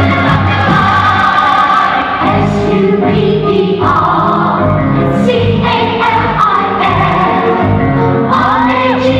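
Music: a song with group singing over full instrumental backing.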